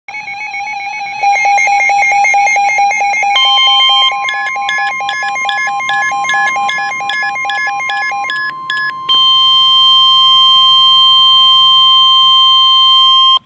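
Electronic emergency-alert tones. First comes a rapid, rhythmic beeping of about five beeps a second; about three seconds in, a steady tone joins it. From about nine seconds there is one continuous loud alert tone, which cuts off suddenly.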